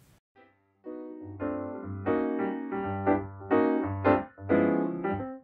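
Background piano music starting about a second in: a run of keyboard notes over a steady bass line, in short phrases.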